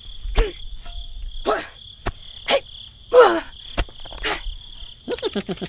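Farmyard ambience: chickens clucking in short falling calls about once a second over a steady high chirring of crickets, with a quick flurry of clucks near the end.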